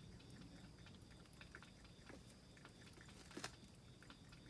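Near silence: faint background hiss with a faint, evenly pulsing high tone, scattered soft ticks and one sharper click about three and a half seconds in.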